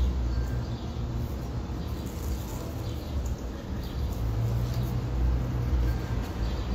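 A steady low rumble that grows louder about four seconds in.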